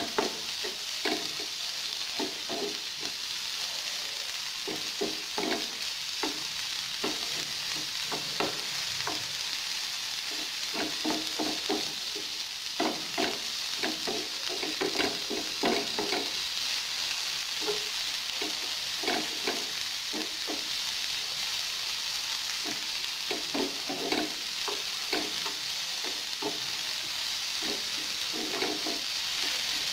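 Chopped onion sizzling steadily in oil in a frying pan, stirred with a wooden spatula that scrapes and taps against the pan in irregular strokes.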